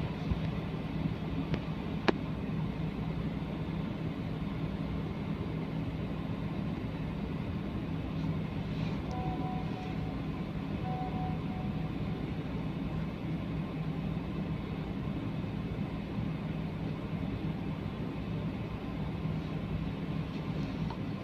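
Steady low hum of a car idling, heard from inside the cabin, with a sharp click about two seconds in and two faint, brief tones near the middle.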